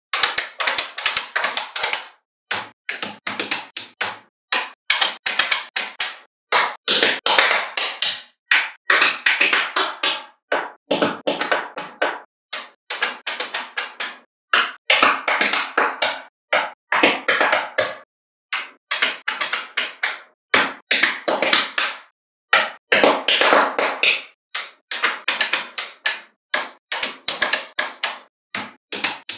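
Small magnetic balls clicking and snapping together as they are placed, in rapid runs of sharp clicks broken by short silent gaps.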